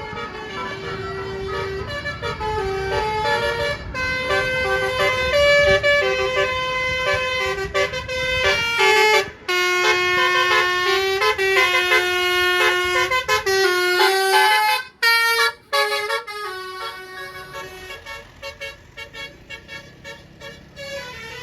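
Bus 'telolet' multi-tone horn playing a tune of stepped notes up and down, over a low vehicle rumble in the first half. The horn breaks off briefly about nine seconds in and again near fifteen seconds, then fades toward the end.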